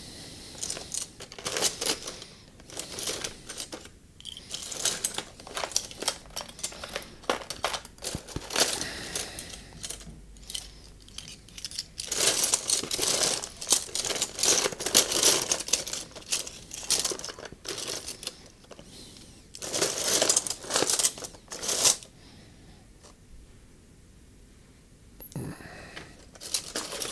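Rummaging through parts packaging: plastic crinkling and rustling with small clicks and knocks. It pauses for a few seconds near the end, then picks up again briefly.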